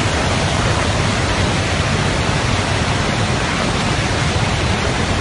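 Loud, steady rush of a muddy flash-flood torrent.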